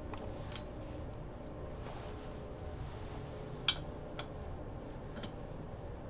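Faint, scattered clicks of a hand wrench and socket on a Harley Twin Cam's cylinder head while the head bolts are turned a quarter turn past torque: four short clicks, the sharpest a little past the middle.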